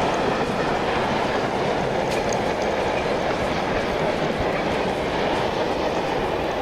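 Freight-train sound effect of a train running through: a steady, even rumble of wheels on track.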